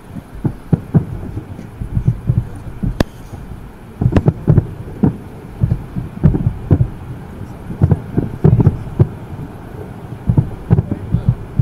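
Fireworks display: a string of dull low booms from shells bursting in the distance, coming in irregular clusters of several at a time and muffled by the car they are heard from inside. A single sharp click comes about three seconds in.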